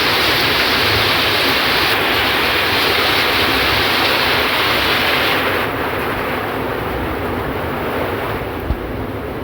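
Heavy rain falling in a dense, steady hiss. About two-thirds of the way through it turns softer and duller.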